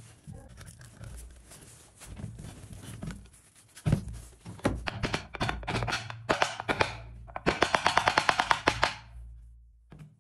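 Wooden mallet knocking on a wooden turntable disc: scattered single knocks, then a quick even run of light taps, roughly nine a second, for about a second and a half near the end.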